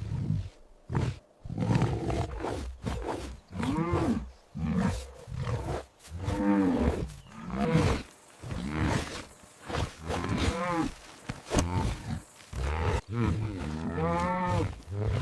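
A big cat roaring and growling in a run of repeated calls, each rising and falling in pitch, about one a second.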